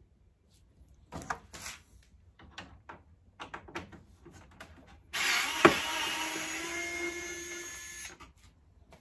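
Small clicks and scrapes of a hand screwdriver working the screws of a mini split indoor unit's plastic housing. About five seconds in, a loud rushing hiss with a sharp knock near its start runs for about three seconds and cuts off suddenly.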